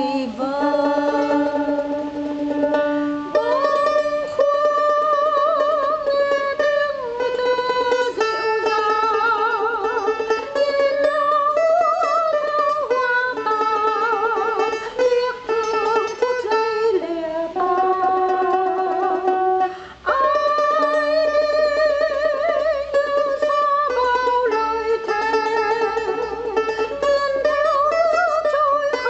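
A slow Vietnamese ballad sung with long held notes and vibrato, over plucked-string accompaniment.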